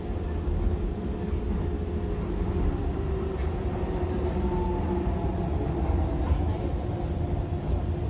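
Docklands Light Railway train heard from inside the carriage: a steady low rumble with a faint electric motor whine above it as the train pulls into a station.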